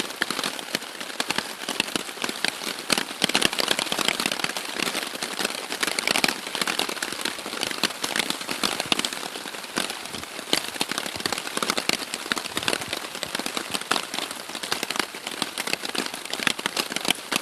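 Steady rain falling on a Warbonnet Superfly hammock tarp overhead: a dense, even crackle of many drops.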